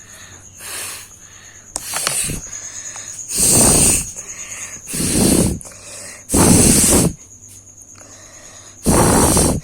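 A person blowing their nose hard in a series of forceful blasts, trying to force out more mucus. There are two lighter blows near the start and then four loud ones, each about half a second to a second long, spaced a couple of seconds apart.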